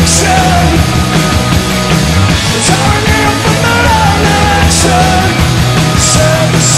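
Punk-rock band playing live, with electric guitars, bass and drums, and cymbal crashes several times.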